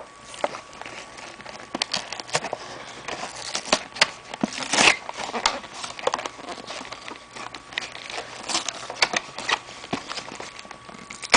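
Clear plastic blister packaging and a cardboard toy box being handled and worked open by hand: irregular crinkling and crackling of the plastic with sharp clicks, and a louder rustle about halfway through.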